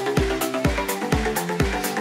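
Electronic dance music with a steady four-on-the-floor kick drum, about two beats a second, under sustained synth chords.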